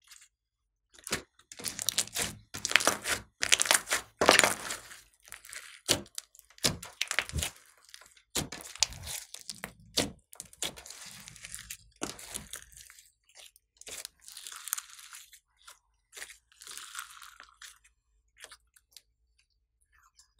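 Glossy slime with small beads mixed in being pressed, folded and stretched by hand: sticky squishing with rapid crackling pops, loudest in the first few seconds, thinning to fainter, scattered crackles after about thirteen seconds.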